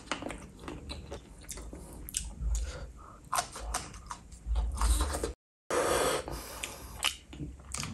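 Close-miked eating sounds: biting and chewing chicken feet in gravy, with short wet clicks and smacks and a few dull thumps. The sound drops out completely for a moment a little after five seconds in.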